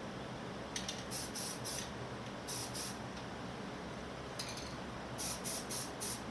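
Rust-Oleum camo aerosol spray paint hissing from a rattle can in short quick squirts, coming in four groups of one to several bursts each. A box fan hums steadily underneath.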